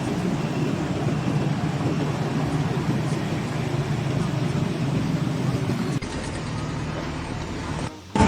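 A vehicle engine running steadily with a low hum. About six seconds in it cuts to a quieter stretch.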